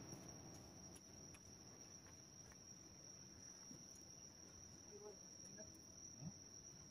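Crickets trilling steadily: a faint, continuous high-pitched tone over otherwise quiet night ambience.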